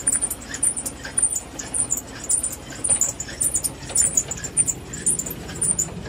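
Old Wühlmaus potato harvester running: its moving chains, belts and pulleys squeak rapidly and irregularly, several high squeaks a second, over a low mechanical rumble.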